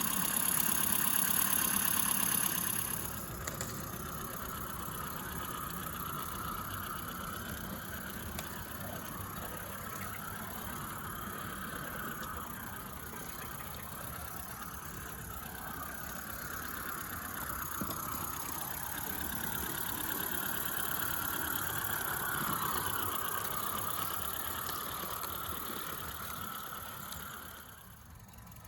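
Accucraft Cranmore Peckett live steam model locomotive running under steam: a strong steam hiss for the first three seconds, then a steady running sound that swells and fades away near the end.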